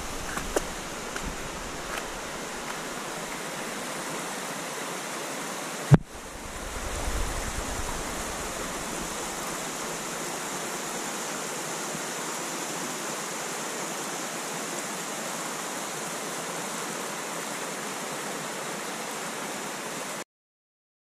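Steady rush of water running through a rocky gorge, with one sharp click about six seconds in; the sound cuts out abruptly near the end.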